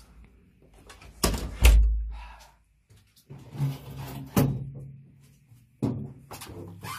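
A wooden door swinging shut with a heavy thunk, two knocks in quick succession with a deep rumble. It is followed a few seconds later by lighter knocks and bumps as someone settles at an upright piano.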